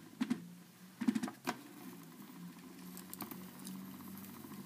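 Scattered light clicks and taps of fingers handling a round mirrored display plate as it is turned by hand, over a faint steady low hum.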